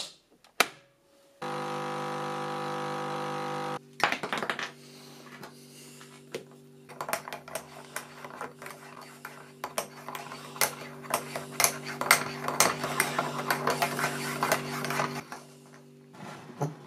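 A coffee machine clicks twice, then its pump runs with a loud, steady hum for about two seconds and cuts off. A metal spoon then clinks rapidly and repeatedly against a ceramic mug as the coffee is stirred, over a steady low hum that stops near the end.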